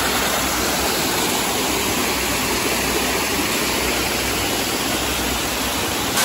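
Mountain stream running over rocks: a steady, even rush of water, broken off abruptly at the very end.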